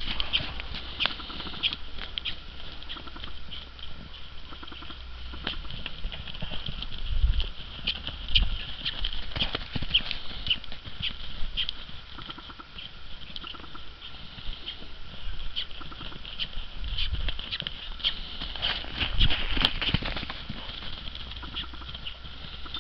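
Hoofbeats of a two-year-old double-cream American Quarter Horse stallion circling on the lunge, its hooves striking frozen, snow-dusted ground in an irregular run of knocks.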